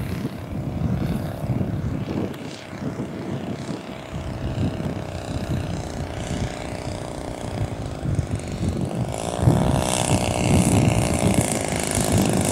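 Engine and propeller of an RC scale model Focke-Wulf 190 running steadily as it flies a low approach, getting louder over the last few seconds as it nears. The engine is being kept running on the approach to a wheels-up emergency landing after a landing wheel fell off.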